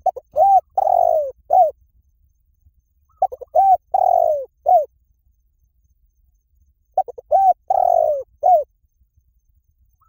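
Spotted dove cooing: three phrases about three and a half seconds apart, each a few short coos around one longer, drawn-out coo.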